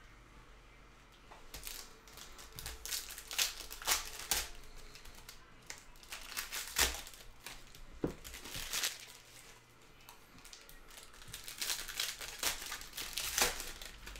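Red foil Panini Donruss Soccer card packs torn open and their wrappers crinkled as the cards are pulled out: clusters of sharp crackling with quieter stretches in between.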